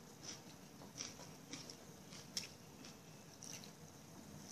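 Faint, scattered soft clicks and smacks, roughly one a second, over low room hum.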